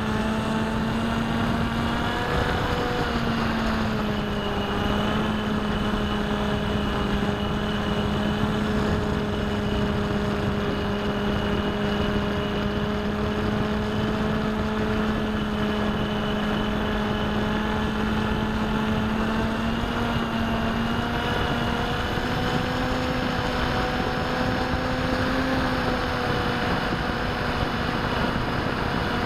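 Bixler v1.1 RC plane's electric pusher motor and propeller running in flight, heard from the onboard camera as a steady drone over a rush of air. Its pitch dips and rises slightly a few times.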